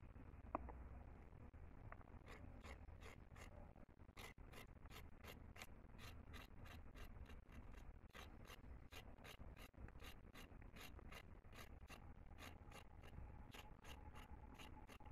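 Faint scratchy strokes of a large knife blade scraping a raw carrot, about three a second, with the scrapings falling away. They start about two seconds in, after a single sharp click.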